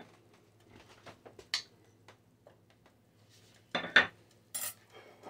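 Kitchen utensils tapping and scraping on cookware while butter is added to a flour roux: scattered light clicks, then a couple of louder clatters near the end.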